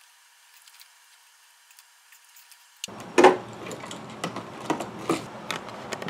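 A few faint clicks, then about three seconds in a steady background hiss starts abruptly, with a run of sharp knocks and clicks. The loudest knock comes just after the hiss begins.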